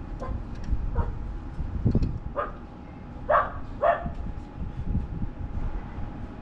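A dog barking in short calls, about five times, the loudest two a little past the middle, over a steady low rumble.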